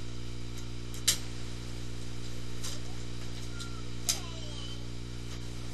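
Six-week-old puppy gnawing and shaking a small toy: three sharp clicks about a second and a half apart, over a steady electrical hum.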